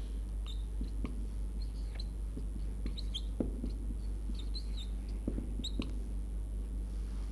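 Whiteboard marker squeaking in short, high chirps with a few light taps while writing on the board, over a steady low electrical hum.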